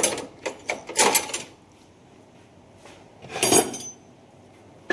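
A few short clanks and rattles of metal hand tools being handled during work on a tractor's steering wheel, then a pause and one more clank about three and a half seconds in.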